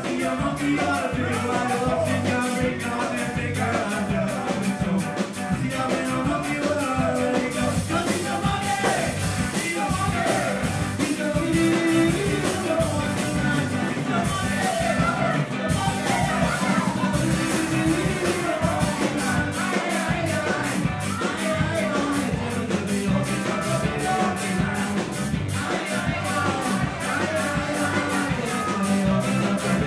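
Live ska band playing amplified, with horns, electric guitars, keyboard and drums over a steady, even beat.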